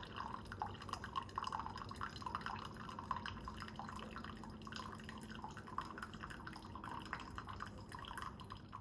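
Keurig K-Supreme single-serve coffee maker dispensing coffee into a cup as a rapid, irregular run of drips and spurts over a faint machine hum, dying away near the end as the brew finishes. The brew comes out well short of the 8 ounces selected.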